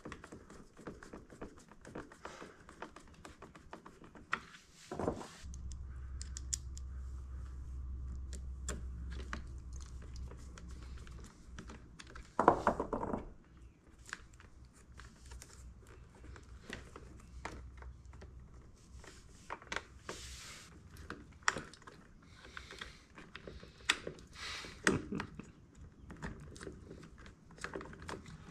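Hands handling wiring and plastic parts of an electric scooter: scattered light clicks, taps and rustles as cables and connectors are tucked and clipped into the plastic frame, with a louder clack about twelve seconds in. A low steady hum comes in about five seconds in and fades out a little before twenty seconds.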